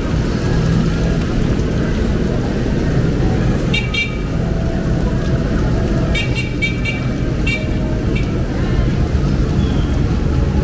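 Steady din of heavy rain and street traffic on a flooded road, with a small vehicle horn giving short beeps: once about four seconds in, then a quick run of beeps around six to seven seconds, and two more just after.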